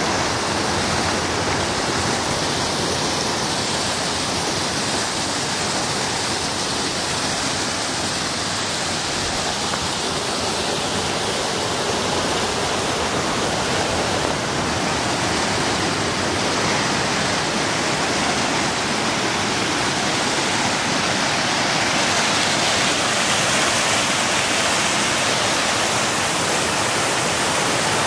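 Mountain stream rushing and splashing over rocks and a small cascade, a steady rushing that gets slightly louder in the last few seconds.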